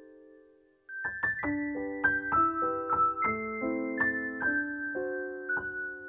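Background piano music. A held chord fades away, and about a second in a new phrase of single notes and chords begins.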